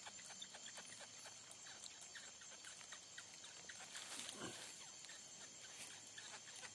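Faint night chorus of insects and frogs, a steady high shrill with many small scattered ticks, and a brief rushing sound about four seconds in.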